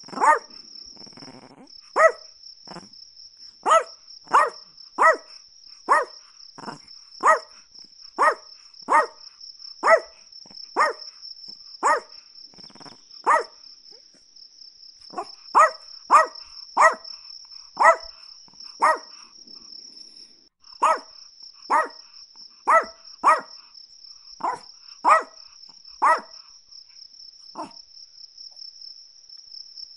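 Chihuahua barking: single sharp, high-pitched yaps, roughly one a second, with a few short pauses. A steady high-pitched trill runs underneath.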